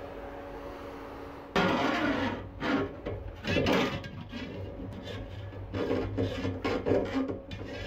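A steady low hum, then about one and a half seconds in a sudden start of irregular scraping strokes, a few a second, like hand work rubbing at a surface.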